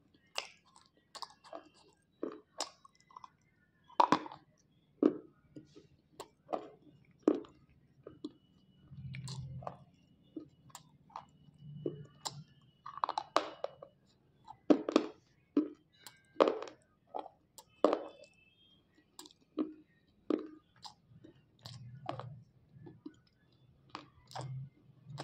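Slate pencils dipped in wet clay paste being bitten and chewed in the mouth: a run of sharp, irregular crunches, several a second at times, with pauses between bites.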